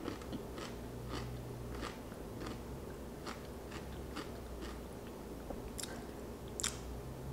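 A person chewing a mouthful of crunchy kosher dill pickle spear: steady crisp crunches about one and a half times a second, with two sharper crunches near the end.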